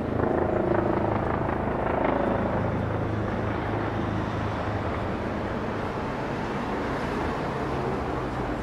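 Street traffic: motor vehicles running on the road alongside, a steady low engine hum over road noise that is a little louder in the first couple of seconds.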